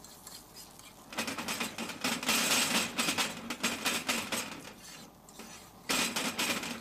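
A metal fork scraping and clattering rapidly against a black frying pan as it stirs omelette eggs over a gas flame. It starts about a second in, drops away briefly near the end, then starts again.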